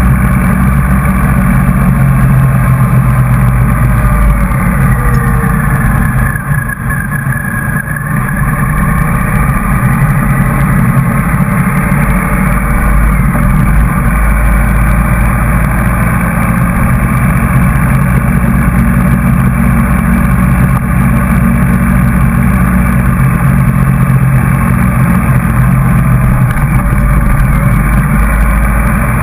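Motorcycle engine running steadily while riding, heard close up from a camera mounted on the bike. About six seconds in it eases off briefly and then pulls again.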